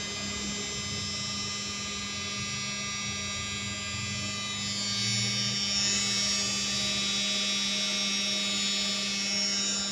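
Top-load washing machine's universal (brushed AC/DC) motor running on test, a steady hum under a high electric-motor whine that swells about halfway through.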